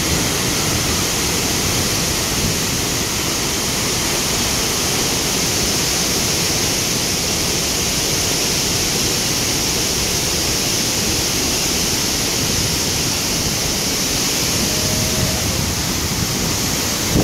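Iguazu Falls at the Devil's Throat: a massive waterfall's falling water making a steady, dense rushing noise that does not let up.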